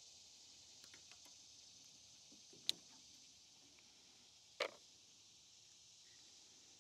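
Two sharp clicks about two seconds apart, with a few fainter ticks before them, as small tools and parts are handled while the fuel line is freed from a riding mower's carburetor. Under them is a faint steady outdoor hiss.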